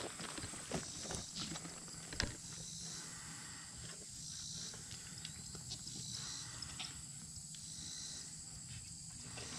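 Goats slurping and lapping water from a galvanized steel stock tank, small wet clicks that come thickest in the first couple of seconds, with one sharper click about two seconds in.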